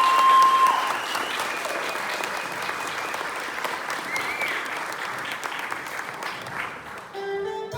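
Audience applauding at the end of a song, with some cheering at first; the applause thins and a few notes of music come in near the end.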